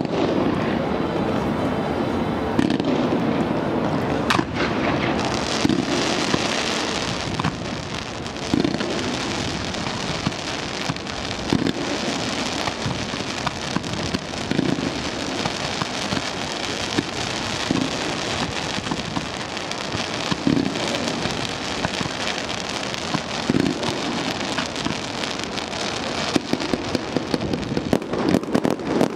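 Fireworks display going off without a break: a dense mix of bangs and crackling from shells and rockets bursting.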